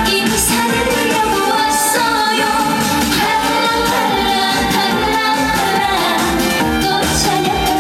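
Trot song played through a PA: a female singer over a backing track with a steady beat.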